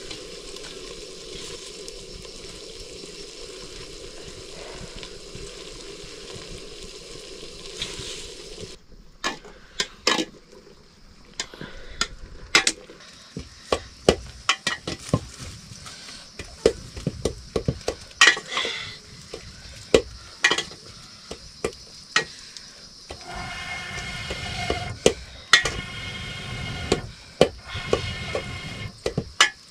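Food sizzling in a pan with a steady hiss, which stops suddenly about nine seconds in. After that a metal spoon knocks and scrapes against a cooking pot again and again as the food is stirred.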